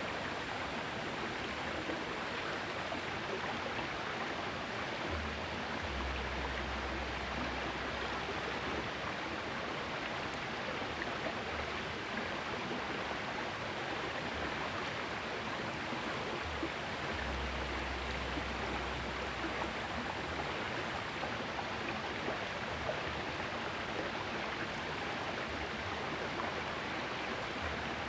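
Small river's water flowing with a steady rushing. A low rumble comes in from about five seconds in and again from about seventeen seconds in.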